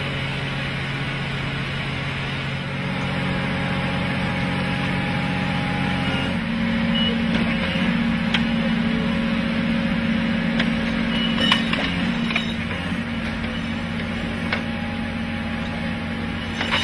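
Engine of a railway track-laying machine running steadily, its pitch stepping up about six seconds in, with a few sharp clicks over it.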